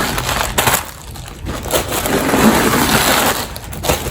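Rustling and crinkling handling noise as a canvas tote bag is held open and moved about, uneven and fuller in the middle.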